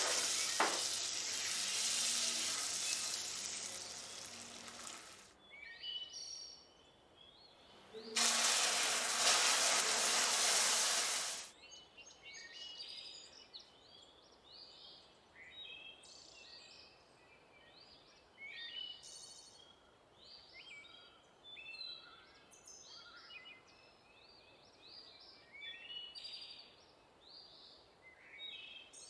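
Food sizzling and frying in a hot pan for the first few seconds, stopping, then starting again for a few seconds near the middle. Birds chirp repeatedly through the rest.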